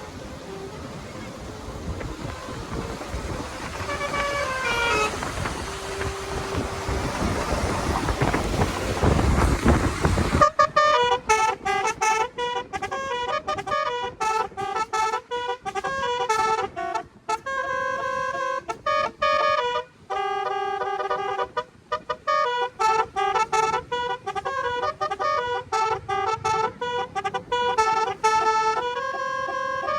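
Multi-tone basuri telolet car horn playing a melody of stepped notes. Road and wind noise with a brief falling run of horn notes comes first; about ten seconds in, a clear, continuous horn tune takes over.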